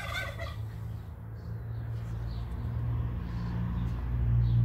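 A brief, broken animal call at the very start, over a steady low hum that grows louder in the second half.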